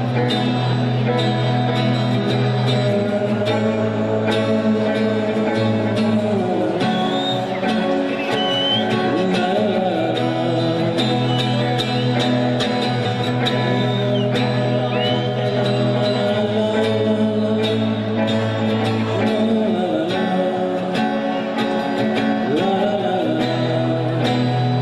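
Music with guitar and singing, holding a steady low note, with a few sliding, wavering melody lines.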